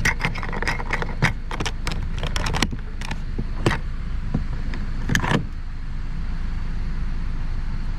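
A rapid run of sharp plastic clicks and snaps as the door's trim clips are pressed into place, thinning to a few single clicks by about five seconds in, over a steady low hum.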